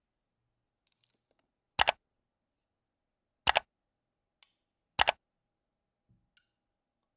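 Computer mouse clicks used as an on-screen sound effect: three sharp press-and-release double clicks about a second and a half apart. A few much fainter ticks come about a second in and near the end.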